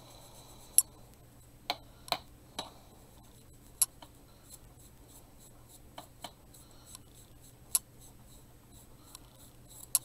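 Irregular light taps and clicks, about a dozen sharp ones, as small wooden craft pieces and tools are handled and set down on a plastic cutting mat, over a faint steady low hum.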